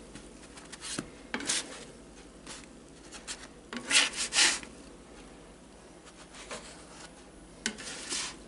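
A spatula scraping across the non-stick cooking plate of a Blackstone 17-inch electric griddle as it slides under slices of French toast to lift them off. It comes in several short scrapes, the loudest a pair about four seconds in.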